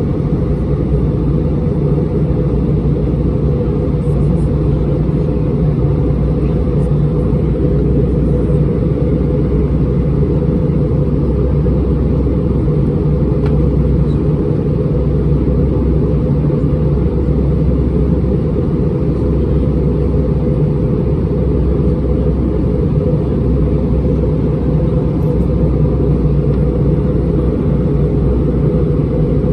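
Steady low drone of an Airbus A320-231 passenger cabin, the engines and airflow heard from a window seat, holding an even level without change.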